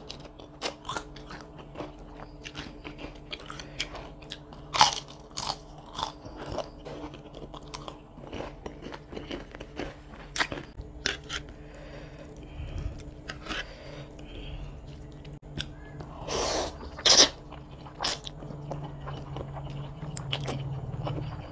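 Close-miked mouth sounds of eating: crunchy food chewed and bitten with many sharp crackles and wet smacks, and noodles slurped in near the end.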